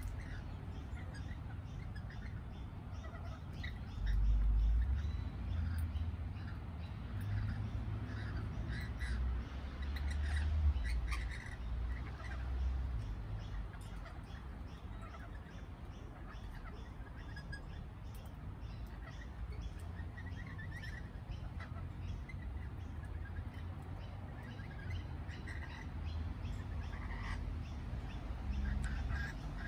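Lorikeets giving short, scattered screeching calls while feeding, over a low rumble that swells about four seconds in and again about ten seconds in.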